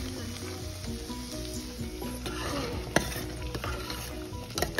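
A metal ladle stirring a simmering pot on the stove, with a bubbling, sizzling background and a sharp clink against the steel pot about three seconds in and again near the end. A steady low hum runs underneath.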